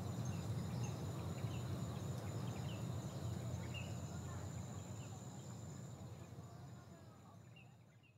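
Outdoor hillside ambience: a steady high insect trill with scattered short bird chirps over a low rumble. The whole bed fades out over the last few seconds.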